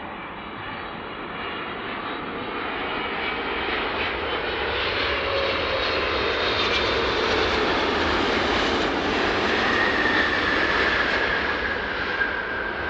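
Large jet airliner on landing approach passing by, its engine noise swelling to a peak about ten seconds in, with a whine that drops in pitch as it goes past.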